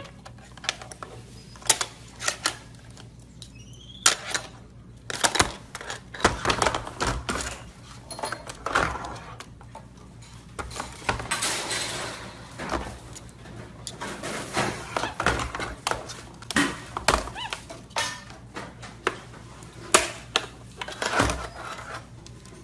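Irregular plastic clicks, taps and knocks as a capuchin monkey handles and picks at a hard black plastic case.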